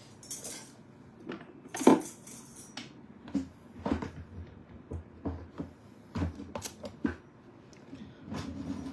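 Small hard objects being rummaged through and set down by hand: a string of scattered clicks and knocks, the loudest about two seconds in.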